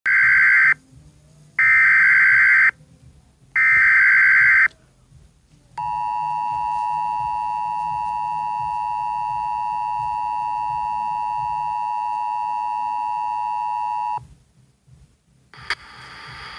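Emergency Alert System broadcast opening: three roughly one-second bursts of SAME header data tones, then the steady two-tone EAS attention signal held for about eight seconds. Near the end a sharp click, then a hiss that grows louder.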